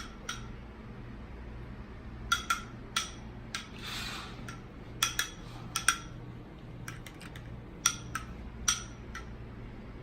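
Scattered, irregular clinks and knocks of kitchen dishes and utensils being handled, with a brief soft rustle about four seconds in, over a low steady hum.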